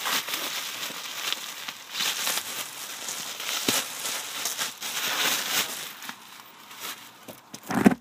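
Packaging rustling and crinkling in uneven bursts as items are handled and taken out of a box, with a louder bump near the end.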